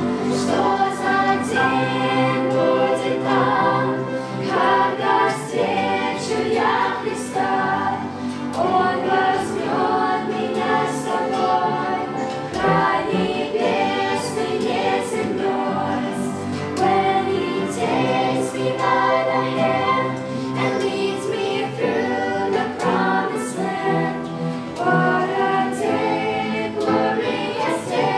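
Family group of men's, women's and children's voices singing a Russian-language gospel song together, accompanied by a strummed acoustic guitar.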